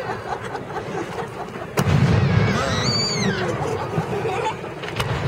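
A firework shell bursts with a loud boom nearly two seconds in, and a low rumble rolls on for about a second. A single sharper crack comes near the end. In between, a high whistle rises and then falls.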